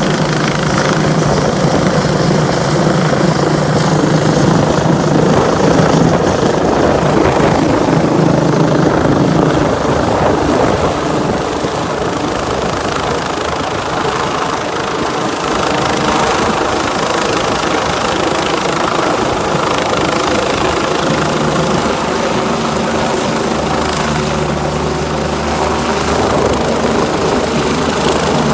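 Air ambulance helicopter running loud and steady, the rotor and turbine noise carrying a thin high whine throughout.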